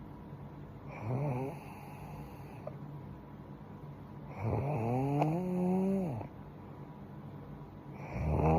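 A young woman snoring in her sleep, one snore every few seconds: a short snore about a second in, a long one in the middle that rises in pitch, and another beginning near the end.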